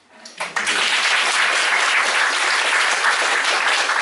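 Audience applauding, breaking out about half a second in and then going on steadily.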